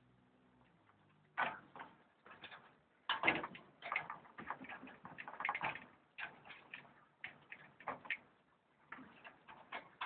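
A rabbit-cage door being worked: clusters of sharp, irregular clicks and rattles, several a second, from its latch and wire, starting about a second and a half in.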